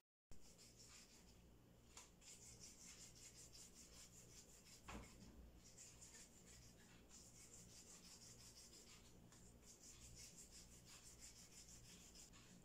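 Faint, quick, regular rubbing of disposable-gloved palms rolling a soft dough of mashed potato and flattened rice into finger shapes, with a brief soft knock about five seconds in.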